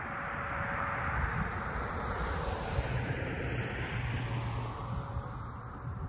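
Aircraft passing overhead: a steady rushing engine noise whose pitch seems to sweep down and then back up as it goes over, with a low hum strongest in the middle.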